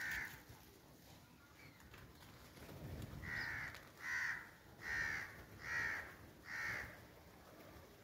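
Crows cawing: a single caw at the start, then a run of five evenly spaced caws just under a second apart, beginning about three seconds in.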